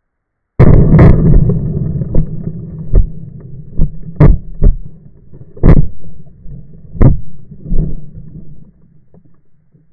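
A Tannerite binary explosive going off under a lawnmower, close to the microphone: a sudden deafening blast about half a second in that hits full scale, then a rumble dying away over about two seconds. It is followed by a series of separate hard thumps as the camera, blown over in its case, tumbles and lands and debris comes down.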